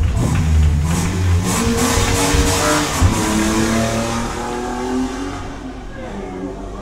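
Recorded car engine sound effect accelerating and revving, pitch rising again and again, then fading away near the end.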